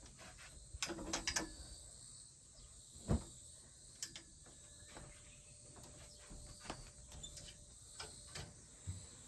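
Scattered light clicks and knocks of household handling, with a cluster about a second in and one louder thump about three seconds in, over steady insect chirping.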